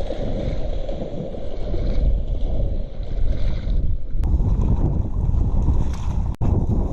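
Wind buffeting the microphone: a steady, loud rumble with no other clear sound over it.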